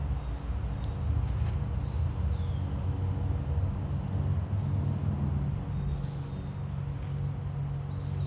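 Steady low rumble like a running engine or passing traffic, with a few short falling bird whistles about two and six seconds in and faint chirps throughout.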